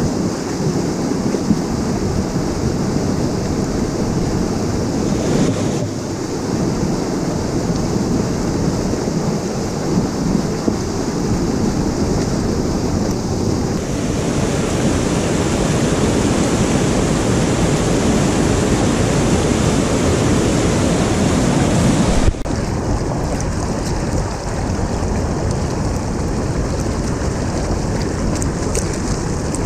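Swollen mountain stream rushing hard over rocks: a loud, steady wash of churning white water. The sound shifts abruptly three times as the stretch of torrent changes.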